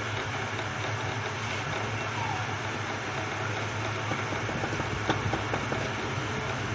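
A steady low hum under a noisy hiss, with a few light clicks about five seconds in.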